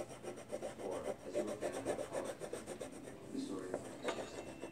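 A coloring tool scribbling on paper in quick back-and-forth strokes, coloring in a drawing.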